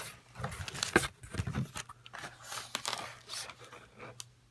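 Bubble wrap and packaging being handled while unboxing: short scattered rustles and scrapes with a few sharp clicks, growing quieter toward the end.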